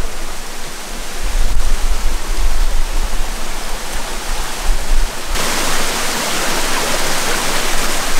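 Rushing water of a rocky stream, a steady hiss. A low rumble sits under it for the first five seconds, then drops away as the water sound turns brighter.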